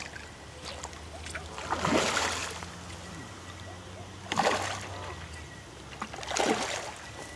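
A hooked carp splashing at the water surface three times, about two seconds apart, as it is played in.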